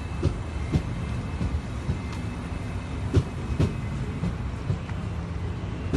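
An enno regional electric multiple-unit train (Alstom Coradia Continental) rolling past along the platform: a steady low rumble broken by sharp wheel clicks, mostly in pairs about half a second apart, as the bogies cross rail joints, heard three times.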